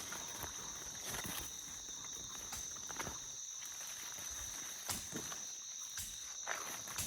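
Insects trilling steadily on two high pitches, with footsteps on the ground and brush every second or so.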